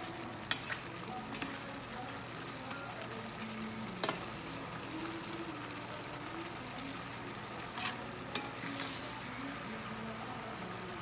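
Garlic butter shrimp frying with a steady sizzle in a stainless steel pan as a spoon stirs it, the spoon clicking against the pan now and then, sharpest about four and about eight seconds in.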